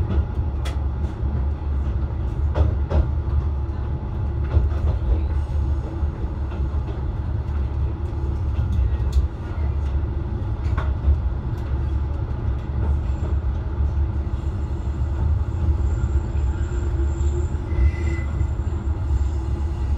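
Diesel railcar running with a steady low rumble and a few sharp clicks from the wheels over rail joints as it slows into a station. In the last few seconds a faint high squeal comes in as it brakes.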